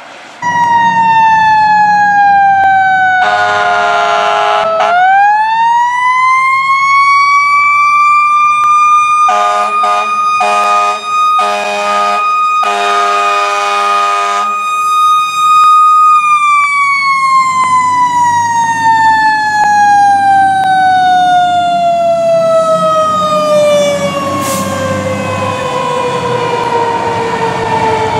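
Fire truck siren winding down, then about five seconds in winding back up to a steady high wail that holds for about ten seconds before slowly winding down again. Air horn blasts sound over it, once early and then several in a row in the middle, with the truck's engine rumbling underneath.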